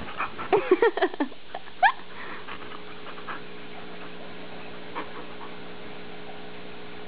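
Standard poodle play-biting a hand and vocalising: a quick run of short whining calls about half a second in, then one sharply rising whine near two seconds, followed by quieter mouthing with faint soft sounds.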